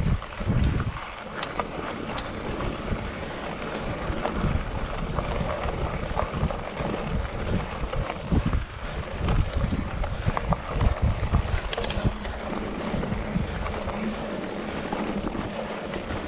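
Mountain bike rolling fast over a loose, rocky dirt trail: a steady rush of wind on the microphone, tyres crunching on gravel, and the bike rattling with many small clicks and knocks over the stones.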